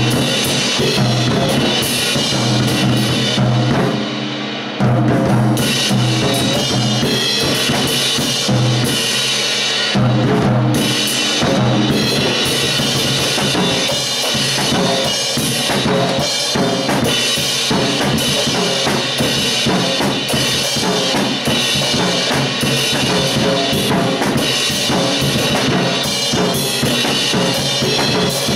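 Acoustic drum kit played hard and continuously: fast bass-drum strokes from a double kick pedal under snare hits and crashing cymbals.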